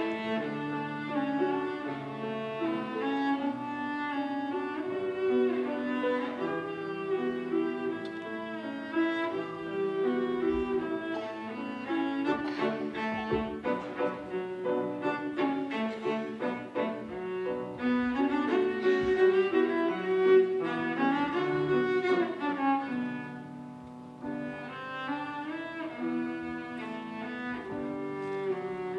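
Cello played with a bow, with grand piano accompaniment: sustained, singing melodic notes over the piano, turning softer about three-quarters of the way through.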